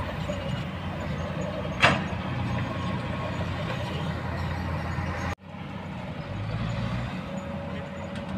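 Kobelco hydraulic excavator's diesel engine running steadily as it digs and swings, with one sharp clank about two seconds in. The sound cuts out for an instant a little past halfway, then the engine carries on.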